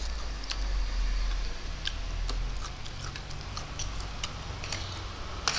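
Close-miked eating of spicy instant noodles: irregular wet clicks and smacks from chewing, with a sharper click near the end.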